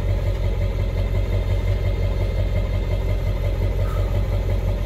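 Tow vehicle's engine idling steadily with a low, even rumble.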